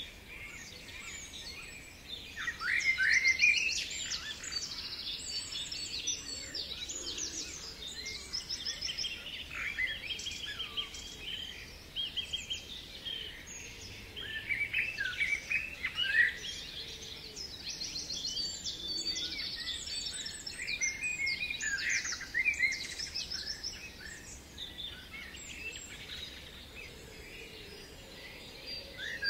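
Several songbirds singing at once, with overlapping chirps and rapid trills.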